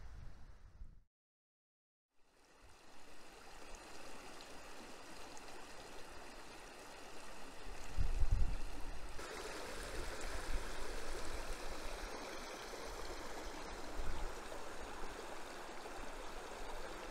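A small mountain beck running steadily over stones, after about a second of silence; it grows louder about nine seconds in. Now and then a low rumble of wind on the microphone.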